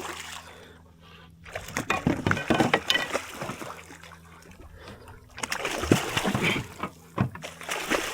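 Water splashing in irregular bursts, about two seconds in and again around six seconds, as a hooked king mackerel thrashes at the surface beside the kayak during the fight.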